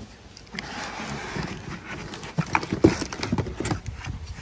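Cardboard packaging scraping and rustling as a circular saw is pulled up out of its shipping box, followed by a run of irregular knocks of the saw against the box, the loudest about three seconds in.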